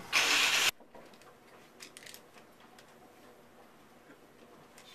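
A loud, short snort of stifled laughter blown out through a hand over the mouth, cut off sharply, then quiet room tone with a few faint clicks.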